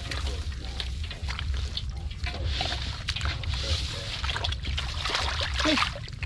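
Muddy water sloshing and splashing as hands work through it, with many small wet clicks and spatters over a steady low rumble.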